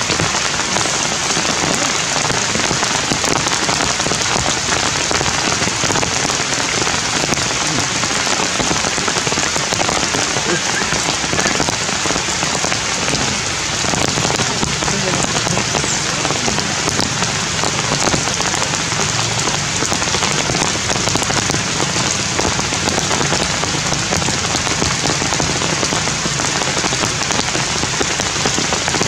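Steady rain, an even hiss that does not let up.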